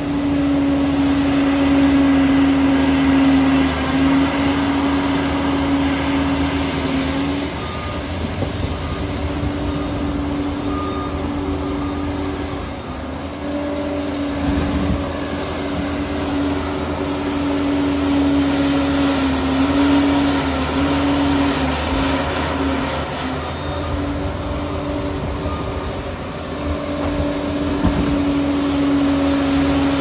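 Liebherr 746 crawler dozer's diesel engine running under load with a steady whine as the machine works a bank of soil with its blade.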